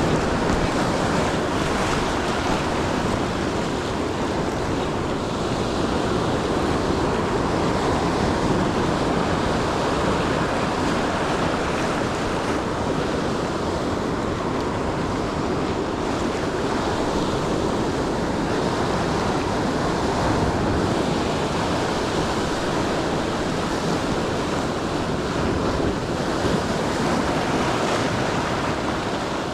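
Ocean surf washing onto the shore in a steady rush, with wind on the microphone.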